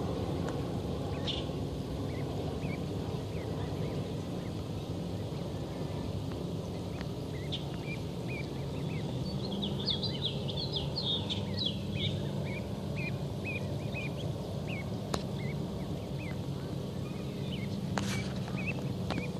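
Steady low outdoor background rumble, with a run of short, high bird chirps that starts about halfway through and is thickest soon after, plus a few faint clicks.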